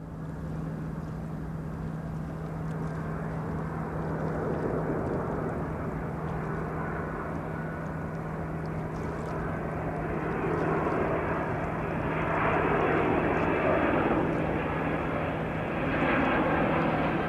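Boeing 767-300 airliner's twin jet engines on approach to land, a steady jet rush with a low hum under it, growing gradually louder as the aircraft nears.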